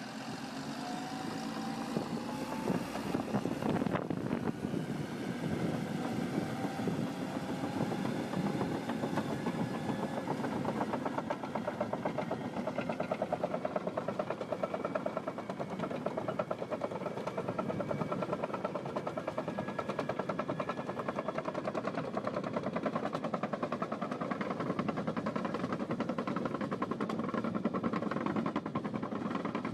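A machine's engine running steadily with a fast, even pulsing.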